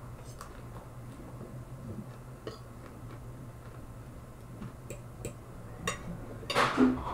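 Fork clicking against a dinner plate and quiet chewing, a few scattered clinks over a steady low hum. Near the end comes one louder, brief noise.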